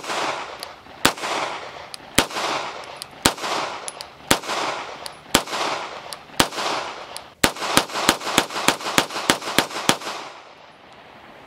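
Beretta 92-series 9mm pistol firing: about seven shots roughly a second apart, each followed by a rolling echo, then a fast string of about ten shots at three to four a second.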